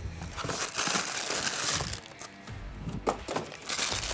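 Paper and plastic packaging rustling and crinkling in irregular bursts as a brown paper bag is rummaged through and a plastic bag of small parts is handled.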